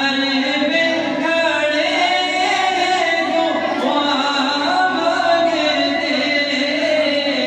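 A man singing a naat, an Urdu devotional poem in praise of the Prophet, solo and unaccompanied, in long held notes that waver and bend in pitch.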